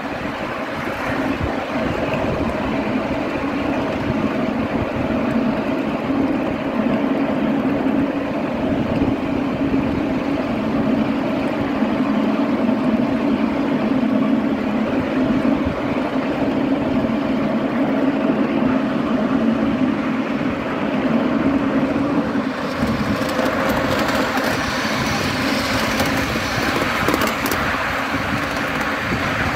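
A 7¼-inch gauge miniature railway train running along its track, heard from aboard a passenger car: a steady rumble of the wheels and cars in motion. A little past two-thirds of the way through, the sound turns brighter and more hissing.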